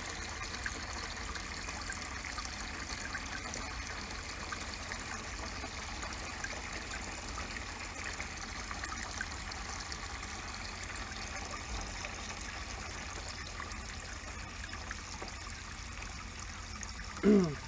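Water from a garden hose pouring in a thin stream into a half-filled plastic barrel trough, splashing steadily onto the water's surface.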